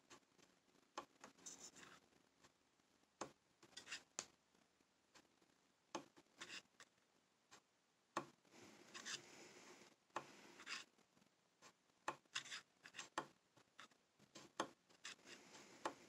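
Faint, irregular clicks and scratchy rubbing from the knurled dial of a Gougler keyless padlock being turned slowly, click by click.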